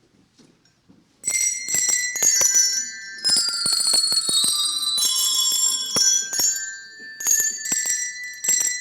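Many small bells ringing together, struck and shaken rapidly with clear high ringing tones, starting suddenly about a second in.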